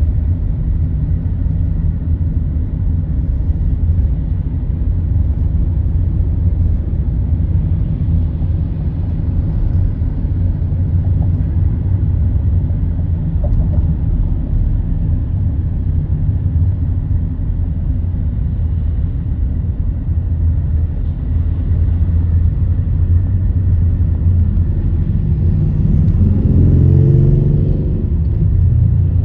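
Steady low vehicle rumble, with a brief pitched engine tone that rises and falls near the end.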